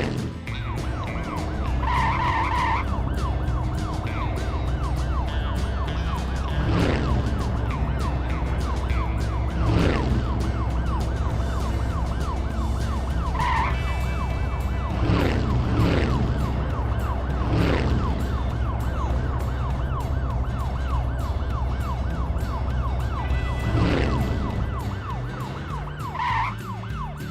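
Cartoon vehicle sound effects: a fast, repeating siren-like wail over a steady low engine hum, with several long falling swoops and three short chime tones.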